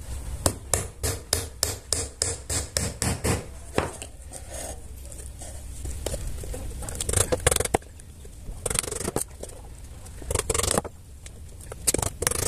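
Hammer tapping nails into the plywood panels of a small speaker box: a quick, even run of about sixteen blows, four to five a second, over the first four seconds. After that come a few short scraping and knocking bursts as the boards are handled.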